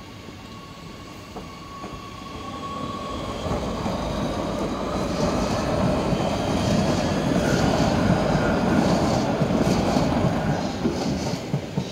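Oslo Metro MX3000 train passing over a level crossing. The running noise builds over the first few seconds and is loudest in the middle, with the wheels clattering over the crossing and a few sharp clicks near the end as the last car clears.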